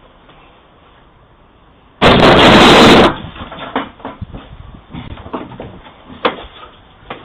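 A sudden loud crash about two seconds in, lasting about a second and overloading the doorbell camera's microphone, followed by a string of scattered knocks and clatter.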